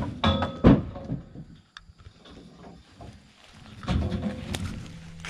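Acacia logs knocking and thudding against each other and the truck's load as they are pushed up and stacked onto the truck: a few loud, sharp knocks in the first second, then another cluster of knocks about four seconds in.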